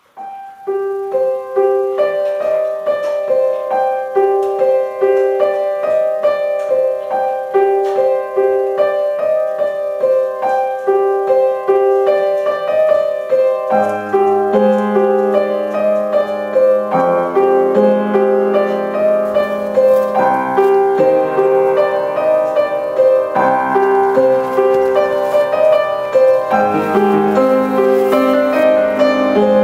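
Piano music: a repeating pattern of notes, with lower notes joining about 14 seconds in.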